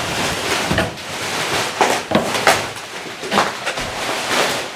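Plastic bubble wrap rustling and crinkling as a wrapped package is lifted out of a cardboard box and handled, with irregular sharper crackles.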